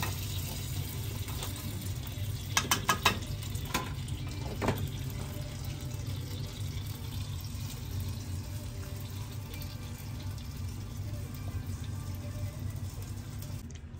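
Thick sauce being scraped and poured out of a wok, with a quick cluster of sharp utensil knocks about two and a half seconds in and two more single knocks soon after, over a steady low hum.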